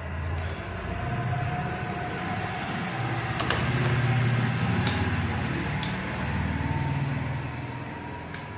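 Low engine rumble that swells and fades over several seconds, with a few faint clicks on top.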